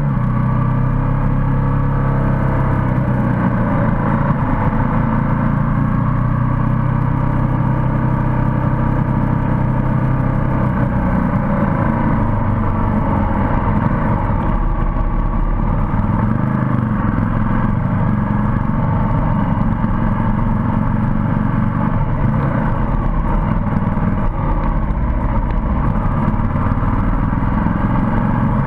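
Motorcycle engine running at a steady cruising pace, heard from on board the bike, with wind noise rumbling underneath.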